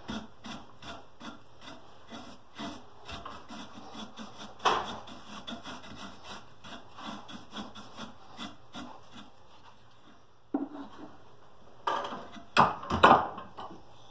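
Hand-abrading a carved wooden slingshot frame clamped in a bench vise: quick, rhythmic rubbing strokes of wood, about two or three a second, that stop about nine seconds in. Near the end come a sharp click and a few louder knocks as the vise is opened and the frame is taken out.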